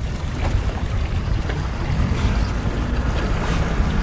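Wind rumbling on the microphone over a boat engine's low hum, with water splashing at the hull as a hooked mahi-mahi thrashes at the surface beside the boat.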